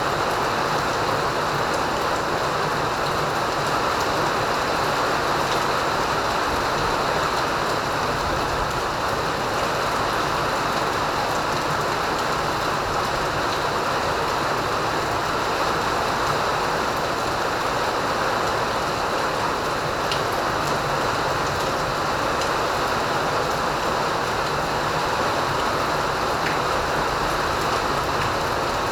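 Rain falling steadily: an even, unbroken hiss that holds the same level throughout.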